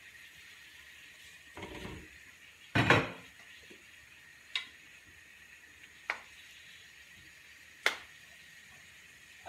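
Glass pan lid set down with a clatter about three seconds in, then a wooden spoon stirring pork ribs in a frying pan, knocking against the pan three times.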